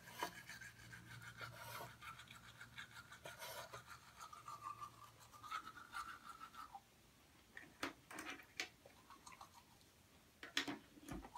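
Faint scratchy scrubbing of a manual toothbrush on teeth, which fades out about seven seconds in. A few soft clicks and taps follow near the end.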